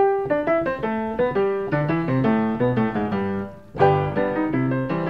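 Background piano music: a quick, bright melody of struck notes over lower chords, briefly dipping just before a new phrase comes in strongly about four seconds in.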